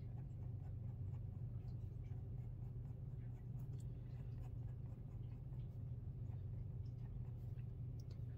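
Faint scratching of a white Gelly Roll gel pen nib across heavyweight black mixed media paper, in short, quick hatching strokes, over a steady low hum.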